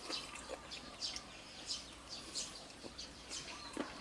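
A bird chirping over and over, short high calls every half second or so, with a few faint clicks.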